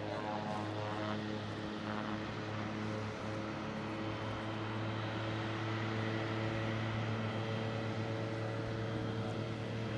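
Propeller airplane engines running at an airstrip: a steady drone with a low hum, growing slightly louder in the second half.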